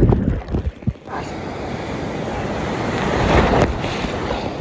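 Ocean surf churning around a handheld camera, with water and wind buffeting the microphone. A loud low rumble at the start dies away within the first second, then the rushing noise of the waves builds up again.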